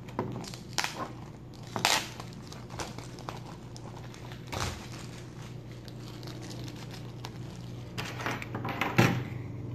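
Plastic shrink-wrap being peeled and torn off a Blu-ray case: crinkling with scattered sharp crackles, loudest about two seconds in and again near the end.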